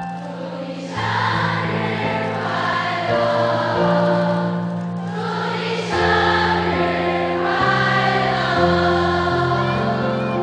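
A large audience singing together over backing music, held notes shifting to new chords every second or two.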